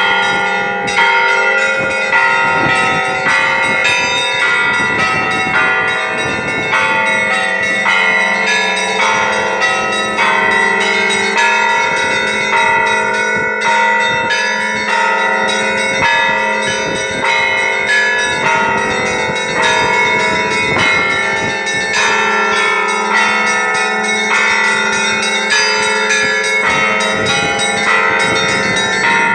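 Russian Orthodox church bells ringing a festive Easter peal: a dense, continuous run of strikes on several smaller bells over a steady low hum from a larger bell.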